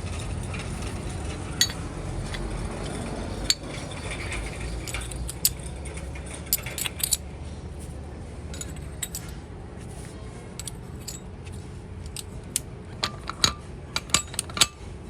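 Metal tools and parts clinking and tapping as they are handled, in scattered sharp clicks that come in clusters about six seconds in and again near the end. A low steady hum lies under the first few seconds and then fades.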